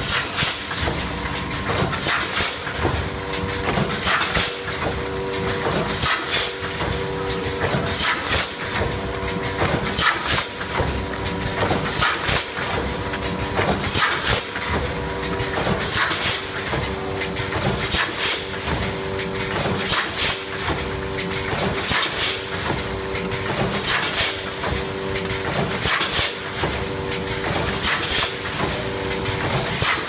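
Rotary premade-bag packaging machine running as it fills microwave popcorn bags: a steady mechanical hum with frequent short, sharp hisses of compressed air and clicks from its pneumatic actuators, repeating in a regular working cycle.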